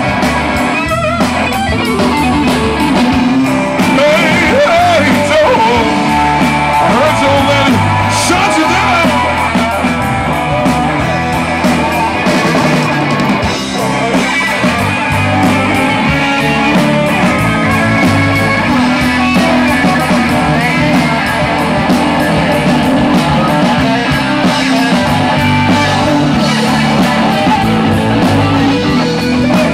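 Live blues-rock band playing loudly, led by electric guitars over a full band, with a voice singing at times.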